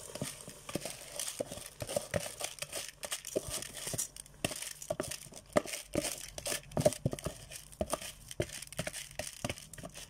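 Washed rice poured from a plastic bag into a cooking pot: the plastic crinkles and rustles over many irregular crackles and ticks as the grains fall.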